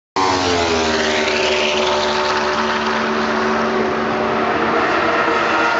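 Racing motorcycle engine running hard at high revs, a steady pitched drone whose pitch sags slightly over the first second and then holds.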